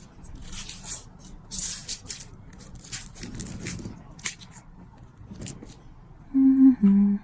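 Light scratching, rustling and small ticks of a nail-art tool working on a press-on nail as tiny steel beads are set into the gaps of the design, in short irregular bursts.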